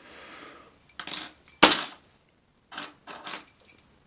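Metal clinking and rattling as a just-picked Titalium padlock and lock picks are handled, with a loud clack a little over a second and a half in and a further cluster of light clinks near the end.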